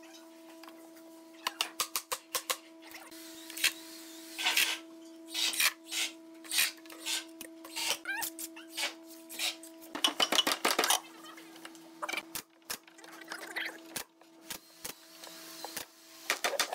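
Wooden workpieces being handled, fitted together and tapped: scattered sharp clicks and knocks in clusters, with a few brief scraping rubs, over a steady hum.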